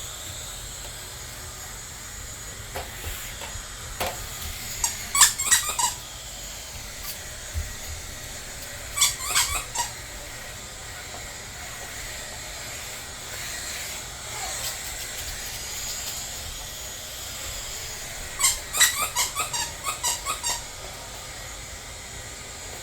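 Squeaky dog toy squeaking in three bursts of quick, sharp squeaks, the last burst the longest, over a steady faint hiss.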